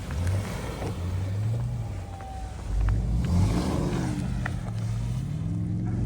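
Car engine revving up and down, its pitch rising and falling several times.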